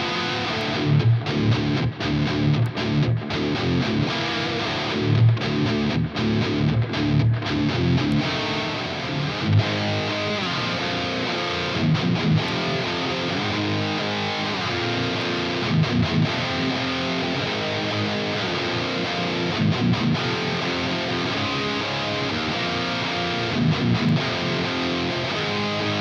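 Les Paul electric guitar through a Bogner Snortler 50 tube amp head, playing distorted riffs. It starts with choppy stop-start chugs, then moves to more sustained, ringing chords after about eight seconds.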